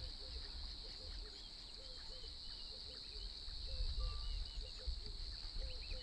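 Riverside ambience: a steady high insect drone with many short scattered chirps over a low rumble. No hippo call is heard.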